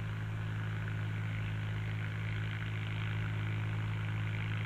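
Ford tractor engine running at a steady speed, an even drone with no change in pitch.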